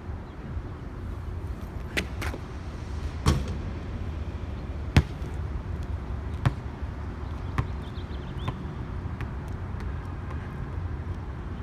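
A basketball bouncing on a concrete court. The bounces come quicker and fainter as it settles, the loudest about five seconds in, over a steady low rumble.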